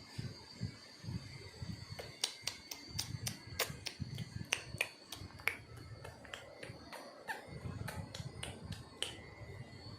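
Repeated sharp clicks at an uneven pace, about one or two a second, over a low rumble.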